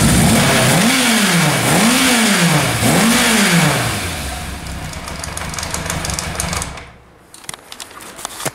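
Motorcycle engine just started on a test run, blipped three times with the throttle, each rev rising and falling back. It then settles to idle and falls quiet about seven seconds in.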